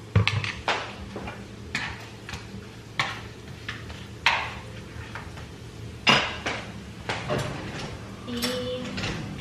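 Utensils clinking and knocking against dishes, about eight separate knocks at uneven intervals, as toppings like crema and avocado are served onto plates.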